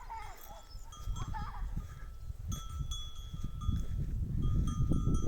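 Sheep bleating briefly twice, with sheep bells ringing. A low rumbling noise grows louder toward the end and becomes the loudest sound.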